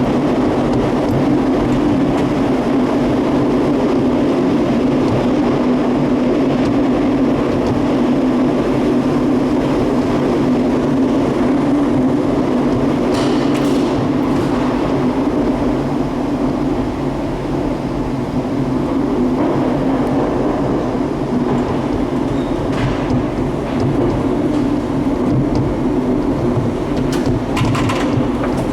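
Gateway Arch tram capsule running along its track inside the arch leg: a loud, steady rumble and whir, with a few light clicks about halfway through and near the end.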